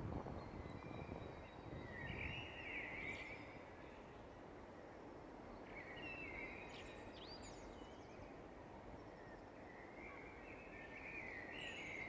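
Songbird singing at dawn, repeating a short warbled phrase with quick upward sweeps about every three to four seconds, over a steady low background noise.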